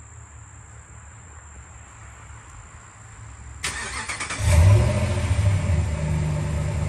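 Ram 1500 pickup's engine started: the starter cranks about three and a half seconds in, the engine catches with a brief rev, then settles into a steady idle.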